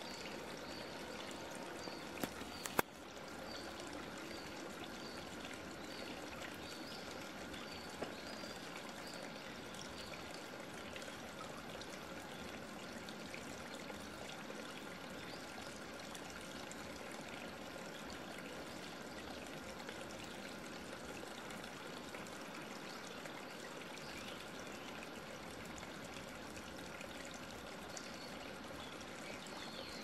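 Steady trickling, running water. A series of short high chirps repeats through the first ten seconds or so, and a few sharp clicks come about two to three seconds in.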